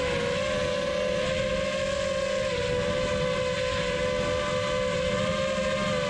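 FPV quadcopter's brushless motors whining at a near-steady throttle, one high tone with overtones that wavers only slightly, over a hiss of prop wash.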